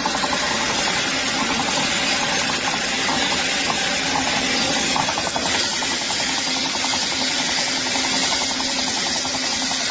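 Used-tyre splitting machine running steadily with a fast, rattling mechanical clatter.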